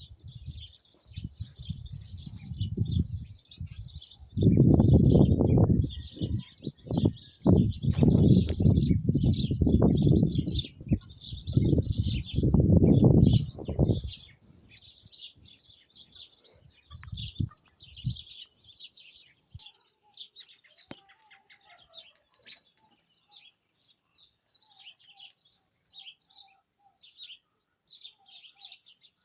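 Many small birds chirping and twittering. In the first half, loud gusts of wind buffet the microphone with a low rumble, then die away.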